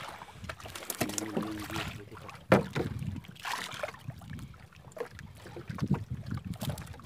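Water sloshing against the hull of a small outrigger boat, with a few knocks on the hull; the sharpest knock comes about two and a half seconds in.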